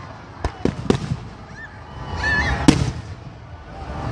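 Aerial fireworks exploding: a quick run of sharp bangs about half a second in, then a single loud bang a little before three seconds, with a low rolling rumble between them.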